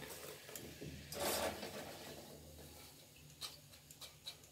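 Crisp fried matri (namak pare) tipped from a wire-mesh skimmer onto a paper-lined plate: a short rustling clatter about a second in, followed by a few light clicks.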